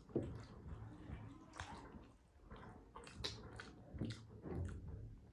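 Wet chewing and mouth smacks of people eating momo dumplings, with irregular small clicks.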